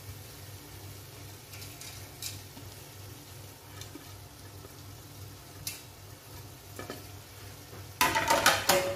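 Hand-crushed fried onions being scattered over beef korma in a large cooking pot: soft scattered rustles and small ticks over a low steady hum. Near the end comes a sudden, louder metallic clatter with brief ringing, like a utensil against the pot.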